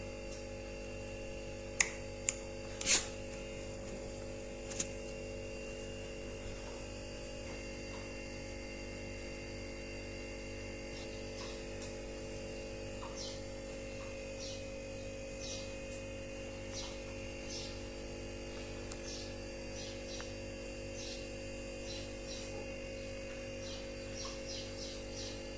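Steady electrical mains hum, with a few sharp clicks about two to five seconds in and faint scattered ticks later.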